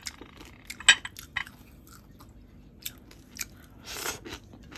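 A person chewing food close to the microphone, with scattered short crunches and a longer crunching sound about four seconds in.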